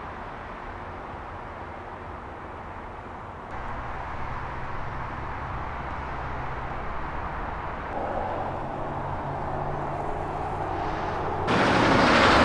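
Steady low drone of distant road traffic, growing a little louder twice. About a second before the end, a much louder, wider rush of noise starts suddenly.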